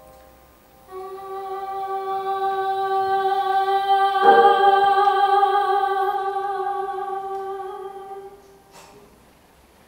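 A trained female voice holding one long final sung note, swelling to its loudest midway and then fading away. A piano chord is struck under the note at its peak.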